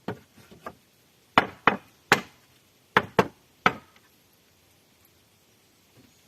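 Hammer knocking on wood: about seven sharp strikes, uneven and some in quick pairs, over the first four seconds.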